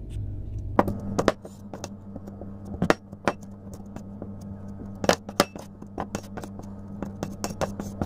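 Irregular clinks and taps on a plate as boiled peas are mashed on it, with a small object pressed and knocked against the plate. A steady low hum runs underneath.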